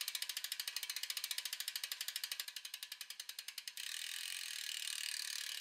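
Rapid, evenly spaced mechanical ratcheting clicks, more than ten a second, which give way to a steadier whirring hiss a little under four seconds in.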